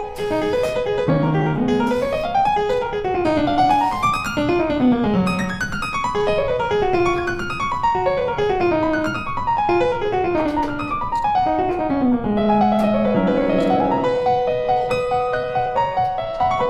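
Background music: a piano playing fast rising and falling runs of notes.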